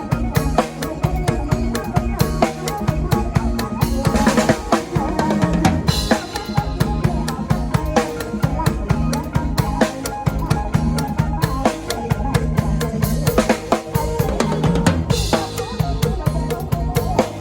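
Instrumental passage of Isan toei-style Thai folk-pop, a busy drum kit beat with snare and bass drum driving over bass and melody notes.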